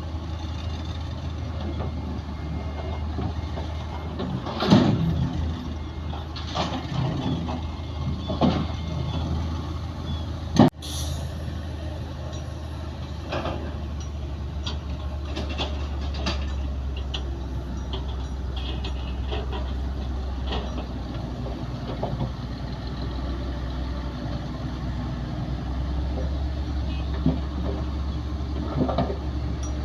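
Heavy diesel earthmoving machinery, a bulldozer or dump truck, running with a steady low drone, with several metallic clanks and knocks and one sharp crack partway through.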